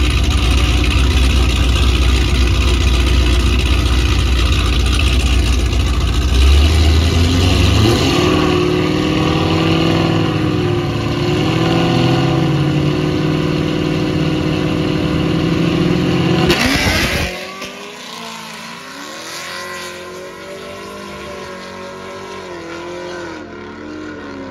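Cammed Chevrolet Camaro drag car idling heavily, then brought up to higher, wavering revs about seven seconds in and held there. About seventeen seconds in it launches with a loud burst, then is heard fainter as it runs away down the strip, the pitch rising and dropping with the gear changes.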